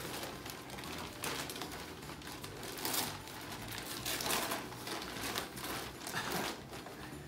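Gift wrapping paper being torn and crinkled as presents are unwrapped, in a series of irregular rips and rustles.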